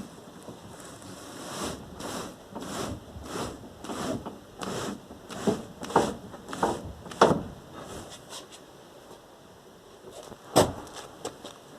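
Knocking under the hood of a 1997 VAZ 21099 as the steering wheel is turned: a series of clunks at roughly two a second for several seconds, then one sharper knock later on. The owner suspects a worn steering rack.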